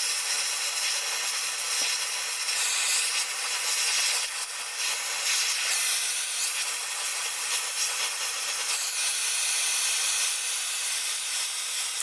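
Oxy-fuel torch flame hissing steadily while heating the threaded area around a seized Allen cap screw to break it loose; the flame cuts off near the end.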